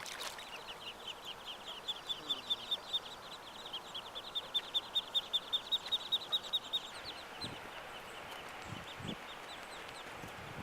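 Ducklings peeping: a rapid run of short, high peeps, about six a second, that thins out to a few scattered peeps after about seven seconds.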